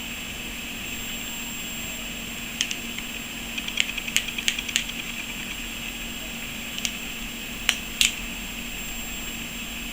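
A pocket multitool being handled: sharp metal clicks as its blade and tools are worked open and shut, in a quick cluster about three to five seconds in and a few single clicks later, over a steady hiss.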